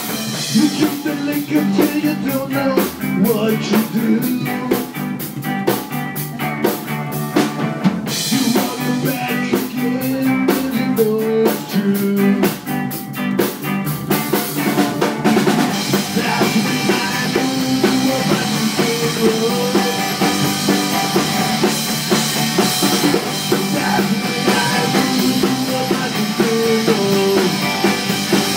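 Live rockabilly band playing: upright double bass, electric guitars and a drum kit. The cymbals wash over the top more densely from about halfway through.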